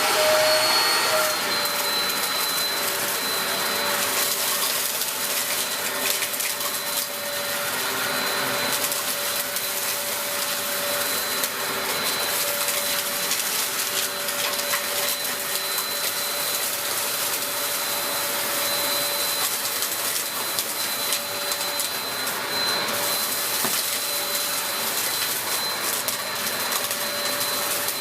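Dyson DC03 upright vacuum cleaner running at full power: its motor finishes spinning up in the first second, then holds a steady high whine with a lower hum over the rush of suction.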